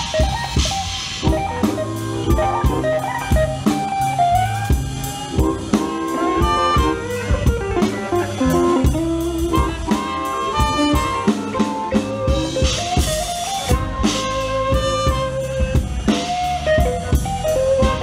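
Live blues band playing an instrumental passage: saxophone melody over a drum kit and electric guitar.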